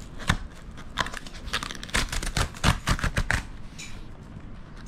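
The tear strip of a corrugated cardboard shipping box is pulled along the middle of the lid, and the cardboard rips open in a quick, irregular series of sharp tearing clicks lasting about three seconds.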